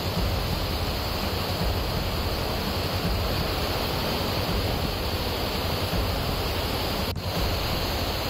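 Steady rushing noise of heavy rain and floodwater, with a brief dropout about seven seconds in.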